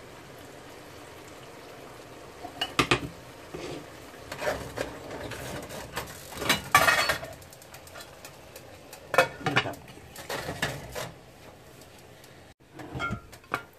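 Kitchen clatter of cookware and utensils: a handful of separate knocks and clinks, the loudest a longer rattle about halfway through, as a glass lid goes onto a stainless-steel pan of rice to steam it on dum. A low steady hiss underneath.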